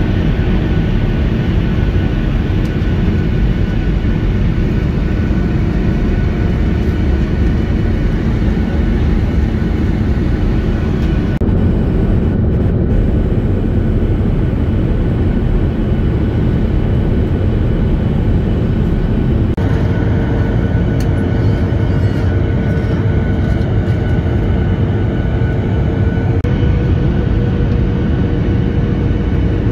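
Airliner cabin noise on the descent to landing: the steady roar of the engines and rushing air heard from a window seat over the wing. A faint hum runs under it and shifts to a higher pitch about twenty seconds in.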